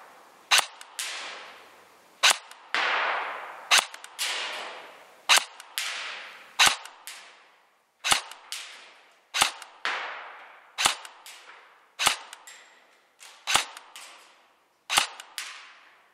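Real Sword Type 56 airsoft electric rifle fired in single shots, eleven sharp reports about every one and a half seconds, each trailing off over about a second.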